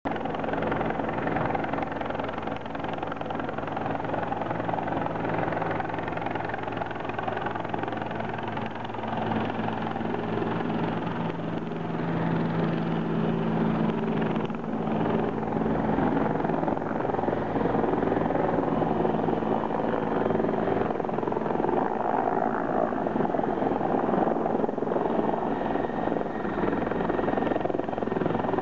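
Bell 412 helicopter's four-blade main rotor and twin PT6T turboshaft engines running steadily as it descends toward a landing, growing louder from about halfway as it comes in close.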